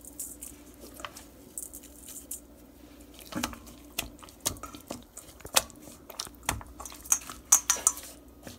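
Hands rubbing and turning raw filet mignon steaks in a wet marinade in a stainless steel bowl: irregular wet squishing and slapping with sharp taps of the meat against the metal, loudest and busiest near the end.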